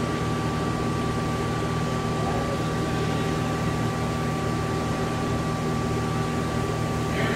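Hyd-Mech S-23A horizontal band saw running at a steady hum, with a faint high whine held at one pitch.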